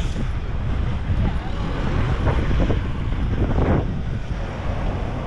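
Town-centre street ambience: a steady low rumble of wind buffeting the microphone over road traffic, with a van driving past.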